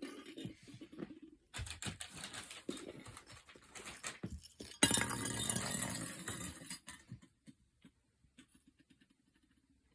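Small hard plastic pieces clicking and rattling, with a sudden louder clatter about five seconds in that lasts about two seconds, then only a few faint ticks.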